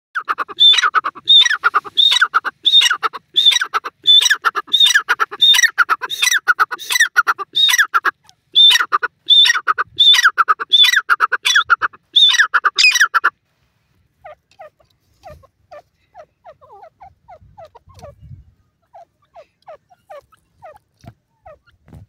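Francolin (teetar) giving a loud, harsh call over and over, about two calls a second, that stops abruptly about thirteen seconds in. Afterwards only faint, short chirps remain.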